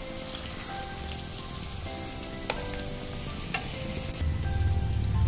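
Potato-stuffed bread rolls deep-frying in hot oil: a steady sizzle with small crackles.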